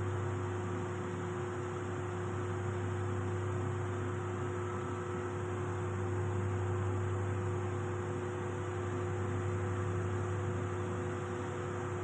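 Steady low machinery hum with a faint even hiss and two faint steady tones above it, unchanging throughout: the background drone of the ship's machinery space.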